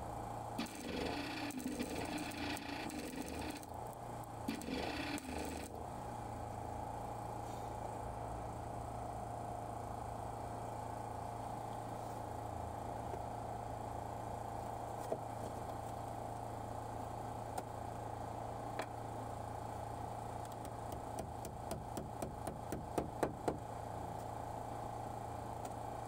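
MIG welder tacking a steel repair patch onto a VW T4 Transporter's step sill: short bursts of crackling arc for the first six seconds or so. A steady hum follows, and near the end a quick run of hammer taps on the sheet steel.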